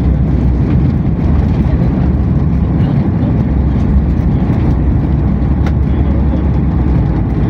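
Cabin noise of a Boeing 737 MAX on its landing roll: a loud, steady low rumble from its CFM LEAP-1B engines and the airframe rolling down the runway, heard from a seat beside the wing.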